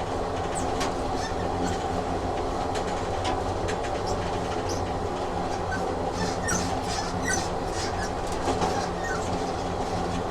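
Train running on rails: a steady rumble with the clicks of wheels passing over rail joints and short high squeaks in the second half.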